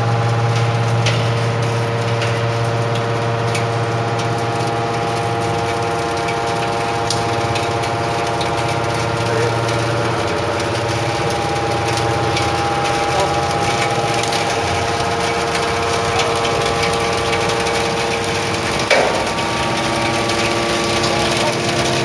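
Hydraulic metal baler's power unit running: a steady machine hum with several held whining tones that shift partway through, and one knock about three seconds before the end.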